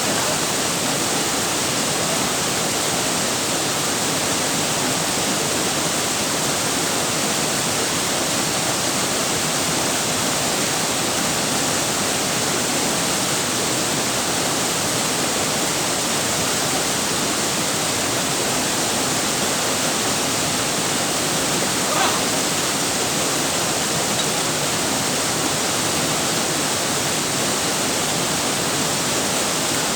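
Waterfall: a steady, unbroken rush of falling water, with one short faint click about three-quarters of the way through.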